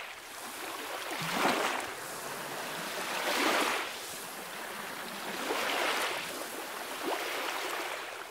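Small waves washing onto a sandy beach: a steady hiss of surf that swells and eases every two seconds or so.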